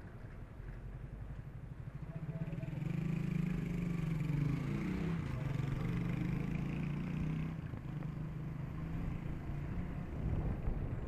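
A motor vehicle's engine passing close by, growing louder about two seconds in and fading after about seven seconds, over a steady low rumble of traffic and riding noise.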